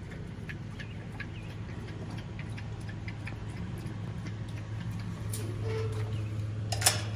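Scattered light ticks of footsteps on a wooden deck as a pit bull walks across the boards, over a steady low hum. A sharper click near the end.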